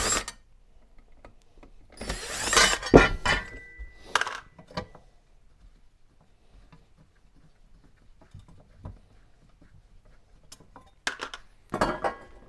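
Metal parts and tools clinking and clattering on a workbench as a heater unit is dismantled. There is a loud burst of clatter about two seconds in with a short metallic ring, then it goes quiet, and more clatter comes near the end.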